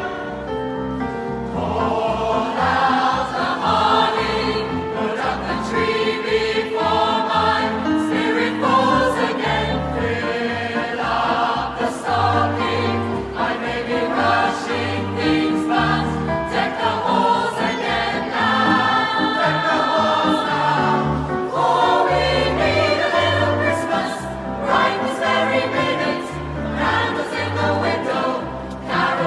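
Large mixed choir of men and women singing.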